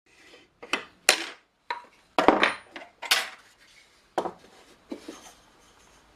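Metal hand tool scraping and knocking against the inside rim of a small oak barrel, in a run of about eight short, sharp strokes that stop about five seconds in.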